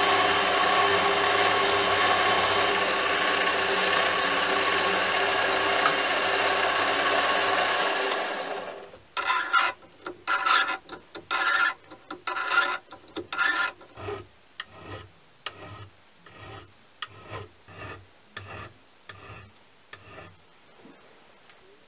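A mini lathe running through a turning cut on a brass part, a steady hiss with a low motor hum, which fades out around eight seconds in. Then hand file strokes on metal, about two a second, loud at first and getting quieter and slower until they stop near the end.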